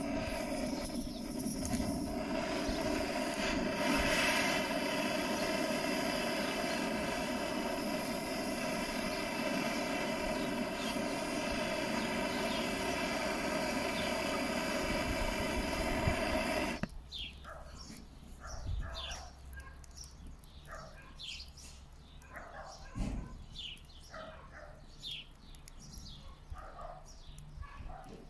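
Gas cartridge blowtorch burning at full flame, a steady hiss under the grill's wood. It cuts off suddenly about 17 seconds in, leaving only faint short ticks.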